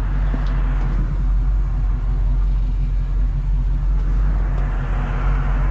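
1970 Chevrolet C-10's 350 V8, with headers and Flowmaster-style dual exhaust, running with a steady low exhaust note heard from inside the cab. Tyre and road noise swells near the start and again near the end.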